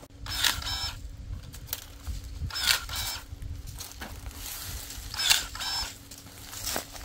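Cordless electric pruning shears with a brushless motor (Kebtek KTE-35) whirring in three short bursts as the blade closes through branches, about two and a half seconds apart, with sharp clicks between the cuts.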